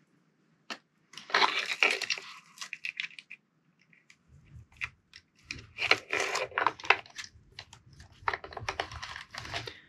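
Hands handling small plastic parts and servo wires: irregular clicks, taps and rustling in three short bursts, as the ESC lead is plugged into the receiver and the wires are pushed into a plastic receiver box.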